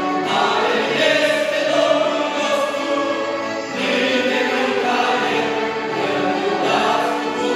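Mixed choir of men and women singing a Romanian hymn, with long held notes.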